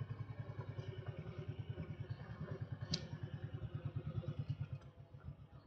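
Honda Shadow Sabre 1100 V-twin cruiser motorcycle running at low speed, its exhaust pulsing rapidly and evenly. A single sharp click sounds about three seconds in, and the engine goes quieter near the end.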